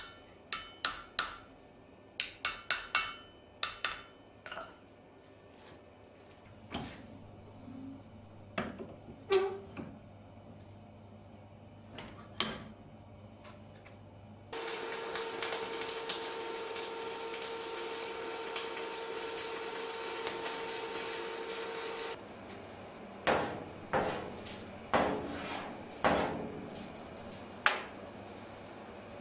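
Hammer striking a steel punch held against a steel block: a quick run of metallic blows, then a few single knocks. Midway a steady mechanical noise with a hum runs for about seven seconds and stops suddenly, and near the end comes another run of five or six hammer blows.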